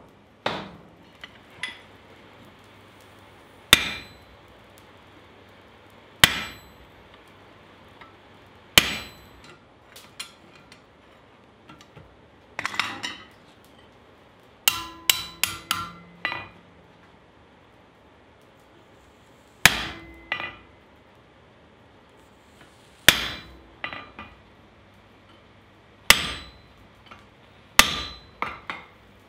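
Hand hammer striking a rod-handled top tool held on a glowing steel bar on the anvil. Single loud, ringing blows come every two to three seconds, with a quick run of about five lighter strikes about halfway through.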